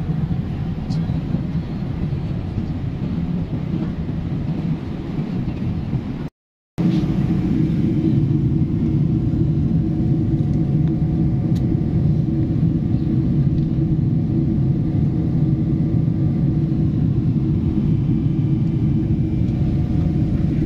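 Steady low roar inside an airliner's cabin in flight: jet engine and airflow noise heard at a window seat. It cuts out for about half a second some six seconds in, then carries on slightly louder.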